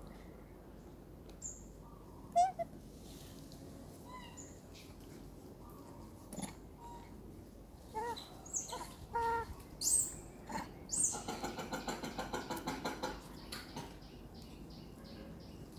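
Birds chirping and calling, short scattered notes, with a fast run of repeated notes, about five a second, lasting some two seconds from about eleven seconds in.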